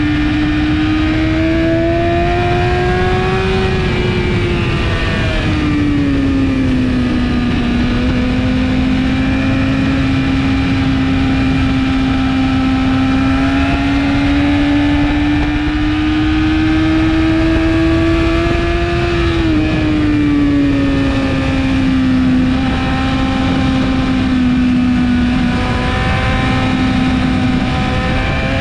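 2017 BMW S1000RR inline-four sport bike engine, fitted with an Akrapovic exhaust, running hard at high revs on track. Its pitch is held high and climbs slowly, then falls away as it comes off the throttle about four to five seconds in and again near twenty seconds. A steady rush of wind noise runs underneath it.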